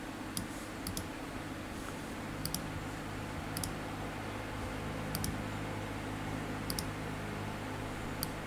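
Computer mouse button clicking, about seven times, each a quick press-and-release double click, over a steady low hum.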